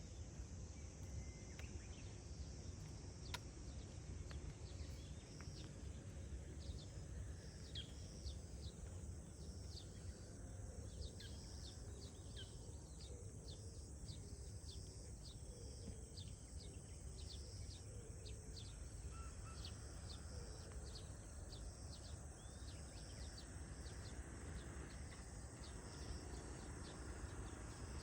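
Faint countryside ambience: a steady low rumble under many short, high chirps scattered throughout.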